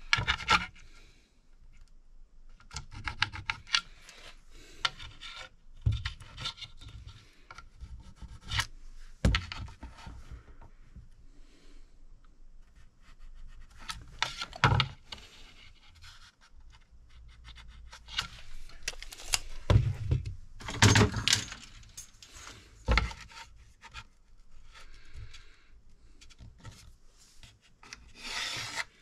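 Hand work on a thin wooden board: irregular rubbing and rasping scrapes with short knocks now and then, as tools and the board are handled.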